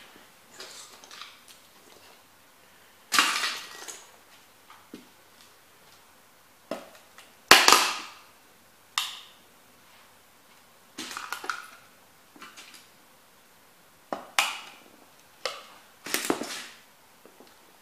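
Model railway houses being crushed underfoot by heavy rubber boots: a series of sharp cracks and crunches as the walls and roofs break and the debris is ground against the board, the loudest about halfway through.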